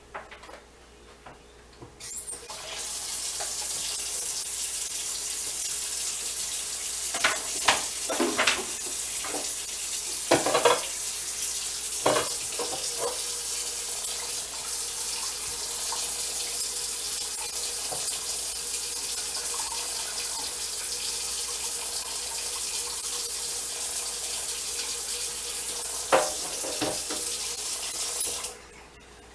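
Kitchen faucet turned on about two seconds in and left running steadily, with a few knocks of a pan or dishes in the sink, then shut off near the end.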